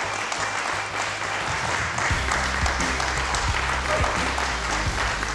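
A small group applauding, with background music and a low bass beat coming in about two seconds in.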